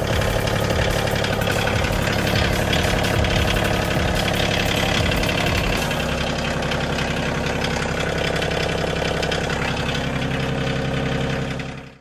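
Bobcat CT2025 compact tractor's diesel engine idling steadily.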